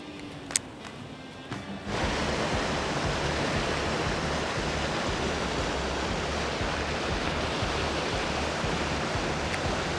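Background music, covered from about two seconds in by a loud, steady rushing noise that holds until the end.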